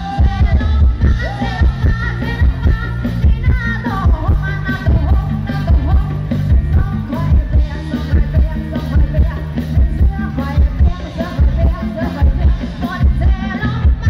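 Live stage band playing loud music with a heavy, steady bass beat, a woman singing the lead into a microphone over it.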